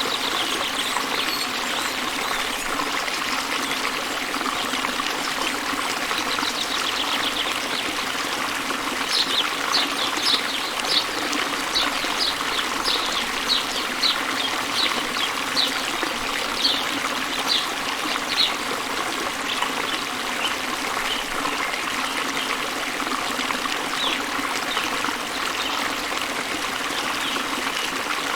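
Waterfall water rushing steadily. From about nine seconds in to about eighteen seconds, a bird chirps repeatedly in short, high notes, roughly two a second.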